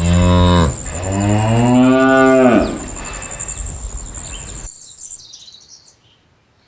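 Cow mooing twice: a short moo that ends early, then a longer one that rises and falls in pitch. A high pulsing chirp runs behind and stops about five seconds in.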